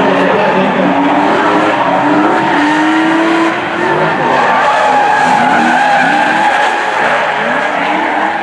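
Two drift cars, a BMW E30 and a BMW E36, sliding sideways in tandem: their engines rev up and down while the tyres squeal continuously.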